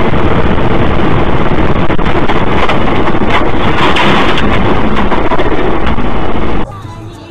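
Loud, steady rushing noise of wind and road on a vehicle-mounted camera's microphone while driving, cutting off suddenly near the end.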